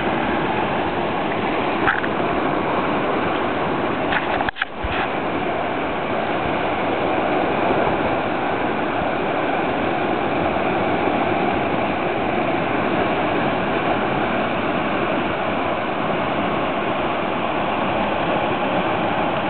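Steady rushing roar of a whitewater rapid, the river pouring over and around boulders. It drops out briefly about four and a half seconds in, then carries on unchanged.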